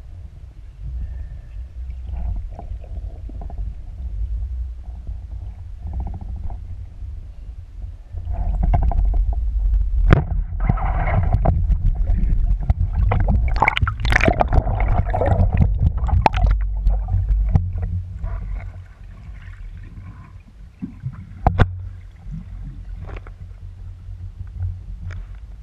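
Water sloshing and gurgling around a GoPro in its waterproof housing, heard as a muffled low rumble with scattered knocks and clicks. It grows louder and busier from about 8 s to about 18 s, with a sharp knock a few seconds later.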